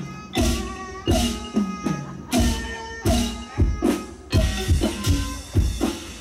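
Thai traditional ensemble music with a drum-led beat: strong strokes about every 0.7 seconds, each followed by ringing pitched tones, growing busier after about four seconds.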